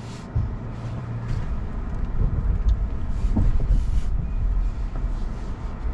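Rivian R1T electric pickup crawling over a rough dirt trail, heard from inside the cab: a low rumble of tyres and suspension over the ground, with a few faint knocks.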